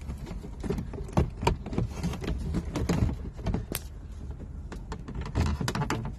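A CB radio in its mounting tray being pushed and slid into an overhead console slot: a run of irregular small knocks, clicks and scrapes, over a steady low rumble.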